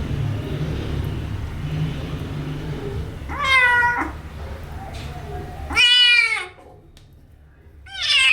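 Kitten meowing: three short, high meows a couple of seconds apart, the last one loudest.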